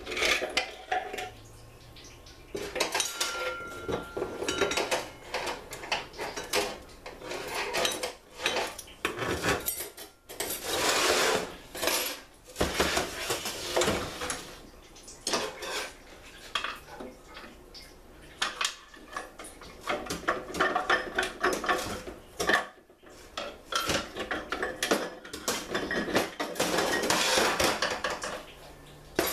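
Steel internal parts of a Ford C6 automatic transmission clinking, clanking and rattling against each other and the case as they are handled and pulled out by hand during teardown. Irregular metallic knocks throughout, with a few longer rattling stretches.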